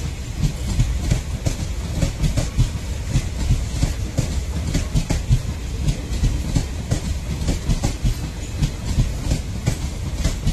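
Passenger train coaches rolling past on the adjacent track, their wheels clattering over the rail joints in a steady, irregular clickety-clack over a low rumble.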